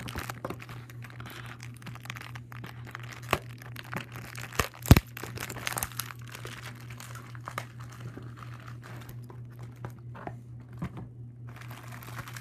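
Plastic toy packaging crinkling and crackling as hands work a Beyblade top out of it, with a few sharp clicks and snaps among the rustle, over a steady low hum.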